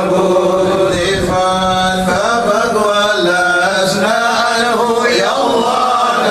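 Men's voices chanting Arabic devotional verses in melodic, drawn-out phrases, a maulid recitation in praise of the Prophet. A steady low hum runs underneath.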